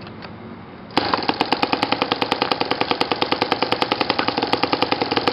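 YS FZ115S supercharged four-stroke glow engine, on a straight header stack, starting about a second in and then running loud with a fast, even beat.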